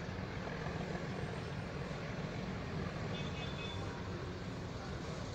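Diesel locomotive engine running out of sight, a steady low rumble that keeps an even level.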